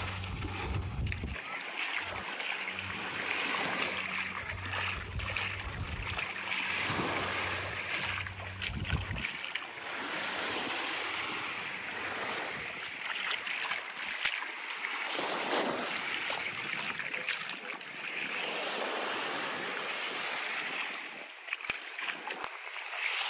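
Small waves washing onto a sandy beach, with wind across the microphone. A low, steady engine hum runs under it for about the first nine seconds, then stops.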